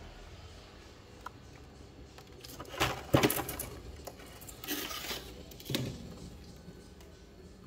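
Plastic containers knocking and scraping in a fridge freezer compartment as a 1.5 L plastic ice cream tub is pulled out from among them. There is a loud clatter about three seconds in, then softer knocks and rustles around five and six seconds in.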